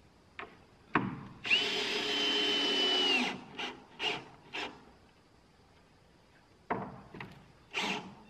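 A cordless power drill runs for about two seconds at a steady pitch, spinning up and winding down, as it works into plywood subfloor. Several short sharp knocks on the wood come before and after it.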